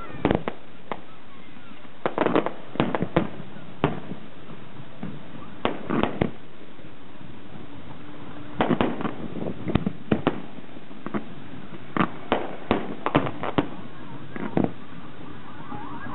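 Fireworks display: shells bursting in irregular clusters of sharp bangs, several in quick succession, with gaps of a second or two between clusters.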